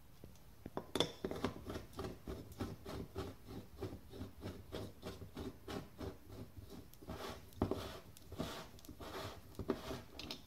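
Threaded aluminium cap of a screw-type A/C oil injector being twisted by hand, its threads and seal rubbing in quick repeated scrapes, about three or four a second, with a sharper click about a second in.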